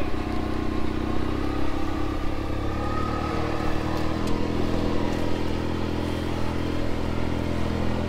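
Side-by-side utility vehicle's engine running steadily as it drives, a low even hum whose pitch shifts slightly about three to four seconds in.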